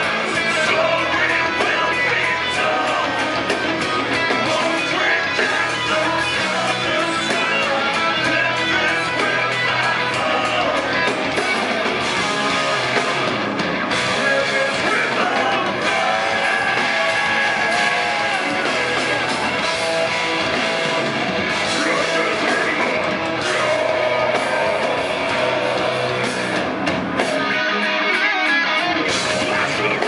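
Live melodic death metal band playing loud, with distorted electric guitars, drums and a vocalist singing into a microphone, heard from within the audience. The low end drops away briefly near the end.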